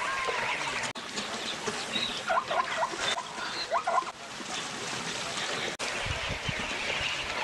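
Plains zebras calling: short, yelping barks in a few small clusters over the first half, against a steady outdoor hiss, with some low rumbling near the end.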